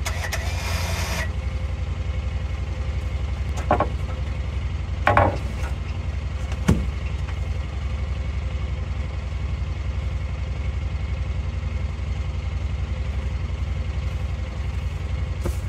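An engine idling steadily, with a winch's whine cutting off about a second in. Then three sharp metallic clanks, about four, five and seven seconds in, as the heavy steel belly pan comes down to the ground.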